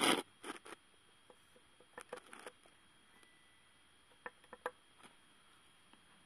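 A few short, sharp clicks and rustles, loudest at the very start and scattered through the rest, over a quiet background with no engine running.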